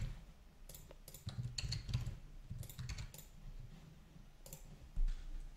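Computer keyboard and mouse clicks: scattered, irregular key presses and clicks, and a dull low thump about five seconds in.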